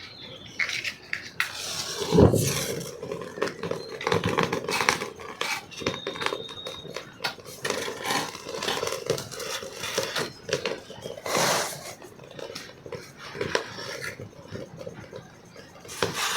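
Dishes and utensils clattering, with irregular knocks and scrapes; the loudest knocks come about two seconds in and again near the middle.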